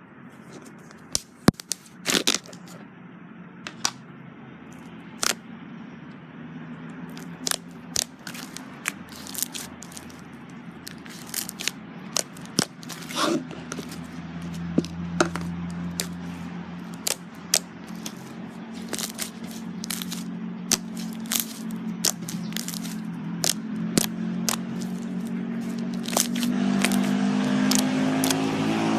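Slime being pressed and squeezed, giving off irregular sharp crackles and pops, many a second at times. A low hum grows louder under it toward the end.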